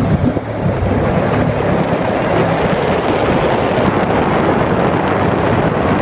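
An 18-foot Ali-Craft jet boat with a Hamilton 212 jet running steadily under way: engine and water noise, with wind buffeting the microphone.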